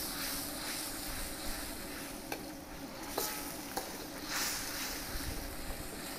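Steady rush of a gas burner under a steel wok with chili sauce sizzling as a metal ladle stirs it, a few light clicks and scrapes of the ladle against the wok.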